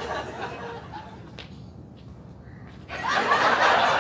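People laughing, breaking out loudly about three seconds in after a quieter stretch.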